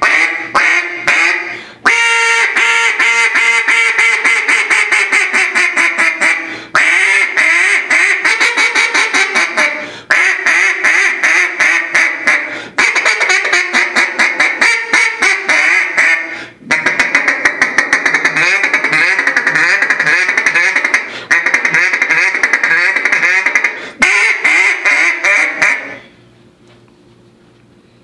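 Acrylic single-reed duck call (Buck Brush) blown in a string of quacking sequences with short breaks between them, among them a long run of quacks falling in pitch and a faster run of short notes. The calling stops about two seconds before the end.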